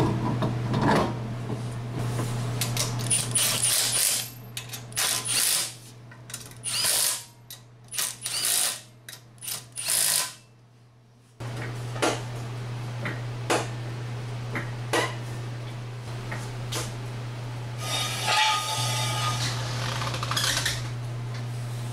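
Milwaukee 3/8-inch cordless impact wrench spinning the wheel's lug nuts on, in several short bursts with pauses between, over a steady low hum.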